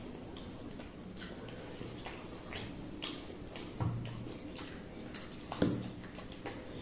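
Eating by hand: wet clicks, smacks and squishes of fingers working chicken curry on metal plates and of mouths chewing and sucking fingers, over a faint steady hum. A brief low hum about four seconds in and a louder single smack at about five and a half seconds.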